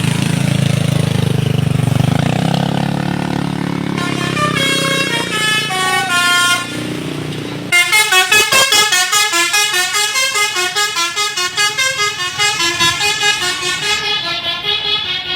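Bus 'telolet basuri' multi-tone musical horn playing quick stepping notes over a low engine rumble. About eight seconds in it switches to a louder, faster-pulsing horn tune.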